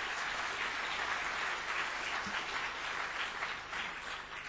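Audience applauding, a dense, even clapping that dies away near the end.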